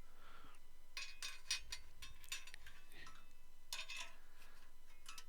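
Faint scattered clicks and light taps of a car radio unit's housing parts being handled and fitted back together, in a few small clusters.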